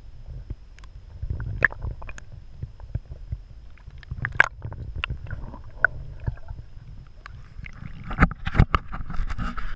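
Muffled low rumble of water heard through an underwater camera held just below the surface, with scattered knocks and clicks. About eight seconds in, the camera breaks the surface and the sound turns to denser splashing and sloshing.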